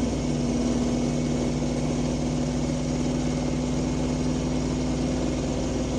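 Truck engine running steadily in gear on the road, heard from inside the cab, its note settling just after a gear change.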